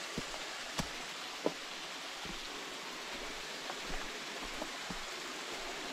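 Steady hiss of water noise, with a scattered handful of soft, irregular knocks over it.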